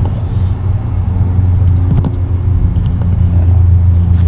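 Steady low engine-like rumble with a faint hum above it, growing slightly louder toward the end.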